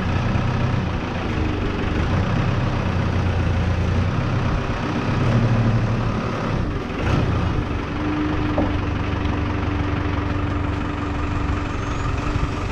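Telehandler's diesel engine running steadily at low revs while its boom positions a tractor wheel. A steady higher whine joins about eight seconds in and stops about four seconds later.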